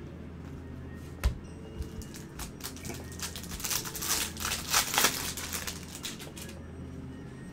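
Trading card pack wrapper crinkling and tearing as the pack is opened by hand: a sharp click about a second in, then several seconds of dense crackling rustle, loudest in the middle, that stops well before the end.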